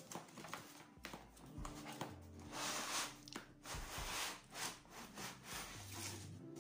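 Cardboard and white foam packing rubbing and scraping as a laptop is pulled out of its shipping box, in a series of uneven scrapes, loudest a few seconds in.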